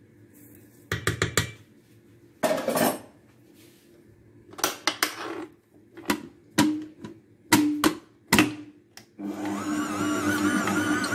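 Clicks and knocks of a stainless steel stand-mixer bowl and its fittings being handled. Near the end the stand mixer's motor runs steadily for about two seconds, kneading pizza dough.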